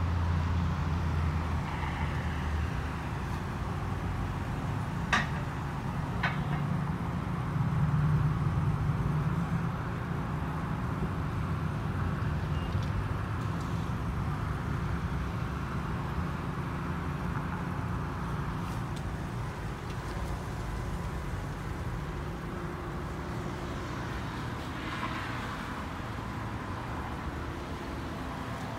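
Mark VII ChoiceWash XT automatic car wash running its wash cycle: a steady hum of pumps and motors with the hiss of spray, a little louder in the first ten seconds. Two sharp clicks sound about five and six seconds in.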